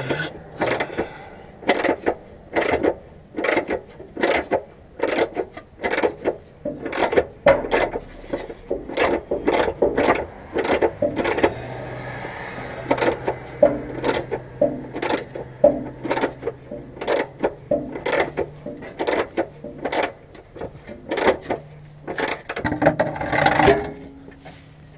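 Hand ratchet wrench clicking in quick repeated strokes, about two to three clicks a second, as a freshly loosened gas tank bolt is run out.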